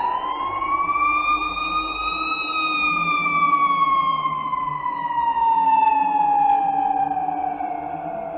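Siren wailing: its pitch rises for about two seconds, then slides slowly back down.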